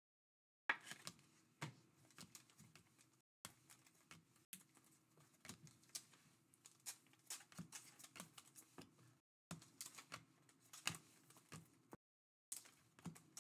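Glossy trading cards, 2024 Topps Series 1 baseball cards, being flicked through one after another by hand: a faint, quick run of light clicks and slides of card on card.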